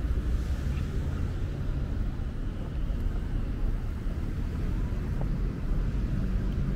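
Steady low rumble of road traffic on a city street, with a faint engine hum.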